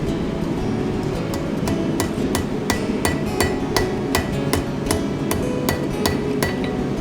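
Blacksmith's hand hammer striking iron on an anvil in a steady rhythm of about three blows a second, forging a spoon-bit drill.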